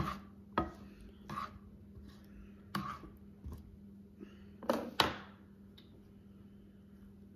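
A plastic spatula knocking and scraping against a frying pan while stirring vegetables: about eight sharp strokes, irregularly spaced, that stop about six seconds in, over a low steady hum.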